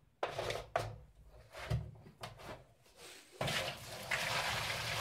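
A few sharp clicks and knocks as the plastic cap is pressed onto a wet tumbler drum. About three and a half seconds in, soapy tumbling water starts pouring steadily out of the tipped drum, through a window-screen strainer in the cap, into a plastic tub.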